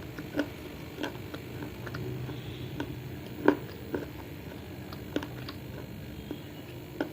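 Close-up mouth sounds of chewing baked clay and clay-pot pieces: sharp crunches come at irregular intervals, about eight in all.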